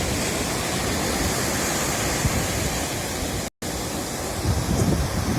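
Steady rushing noise of sea surf, broken by a sudden dropout to silence for an instant about three and a half seconds in.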